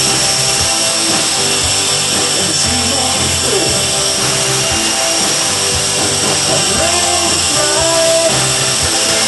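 Small electric RC helicopter's motor and rotors whining steadily while it hovers, with music playing over it.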